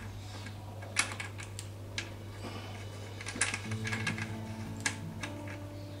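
Scattered sharp clicks and knocks of hard plastic, a handful of separate ones, as the parts of a Ryobi pressure washer are handled and fitted together.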